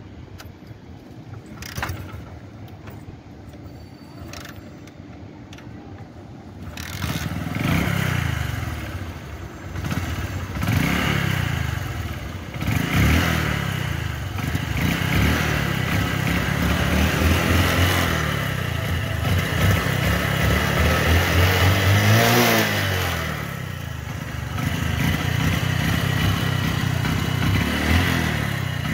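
Bajaj Discover's single-cylinder four-stroke motorcycle engine being kickstarted: a few kicks, then it catches about seven seconds in. It is then revved several times while standing, the pitch rising and falling, with the hardest rev about two-thirds through, and settles to steady running near the end.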